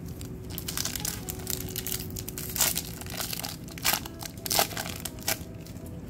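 Foil booster-pack wrapper crinkling and tearing as it is handled and opened, in irregular crackling bursts, the loudest about two and a half, four and four and a half seconds in.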